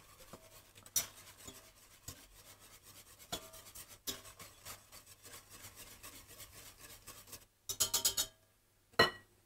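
Wire whisk scraping and tapping against the inside of a stainless steel saucepan as milk is whisked: a rapid run of light scraping ticks with a few louder clinks. Near the end comes a short cluster of sharper clicks and one sharp knock.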